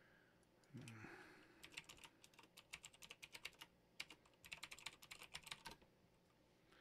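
Faint typing on a computer keyboard in several quick runs of keystrokes: a login password being entered.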